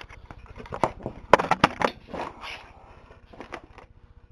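A computer power supply's metal casing being smashed apart: a run of hard knocks and crunches, loudest about a second and a half in.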